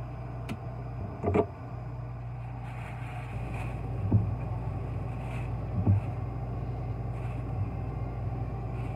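A spatula stirring food in a frying pan, knocking against the pan a few times, over a steady low hum.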